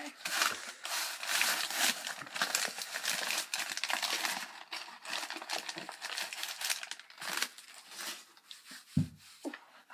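Packaging being handled and unwrapped, a dense crinkling and rustling that fades after about seven seconds, with a single dull knock near the end.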